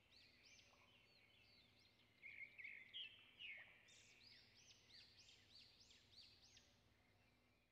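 Near silence with faint bird chirping in the background: a run of quick, high, repeated chirps, denser in the second half.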